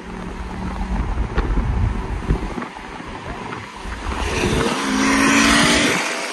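Two BMW 340i sedans with turbocharged straight-six engines racing side by side at full throttle. Their engine note rises steadily in pitch, and a loud rush of wind and exhaust builds from about four seconds in as they pull away from the filming car.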